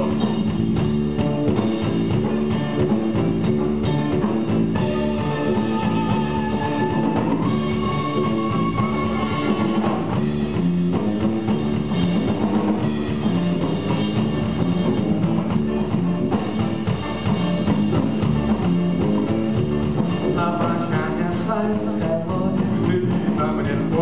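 Live band playing a song: drum kit, guitars and bass keeping a steady beat, with long held notes in the melody.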